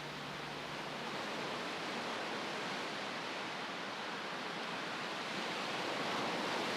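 Ocean surf washing steadily onto a beach, an even hiss with no separate waves standing out.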